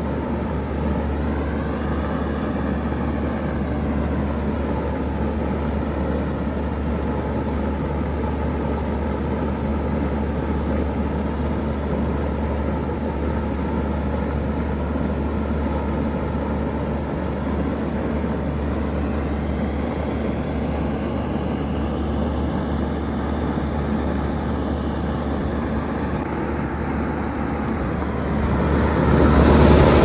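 Bard 3-ton wall-mount heat pump running steadily in heat mode, with a constant low hum and the rush of its outdoor fan. It gets louder near the end as the fan grille comes close.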